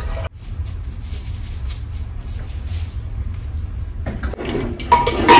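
Kitchen handling noises: utensils and containers knocked and moved about, with scattered light knocks and then a cluster of louder clatters near the end, one with a brief metallic ring. A steady low hum runs underneath.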